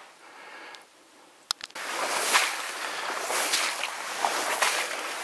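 Quiet at first, then a click about a second and a half in, followed by steady rustling and swishing of marsh grass and reeds brushing against clothing, with many small crackles, as the hunter pushes on through the bog.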